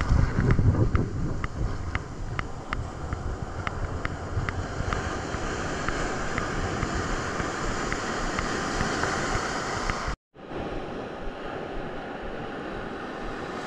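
Ocean surf washing on the beach, with wind buffeting the microphone. A string of light clicks sounds over the first few seconds, and the sound drops out completely for a moment about ten seconds in.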